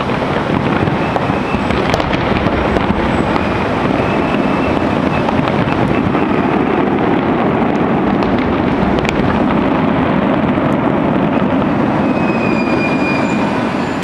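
Distant fireworks going off in a dense, continuous barrage: a steady rumbling wash of bangs and crackle with occasional sharper pops.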